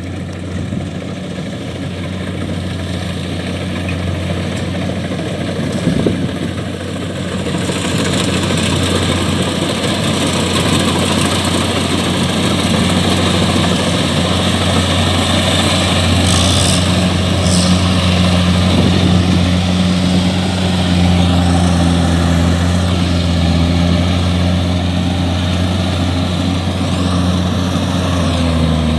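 Kubota DC-70 combine harvester cutting and threshing rice: its diesel engine and threshing machinery run with a steady drone that grows louder about a quarter of the way in as the machine comes closer. A single brief knock sounds about six seconds in.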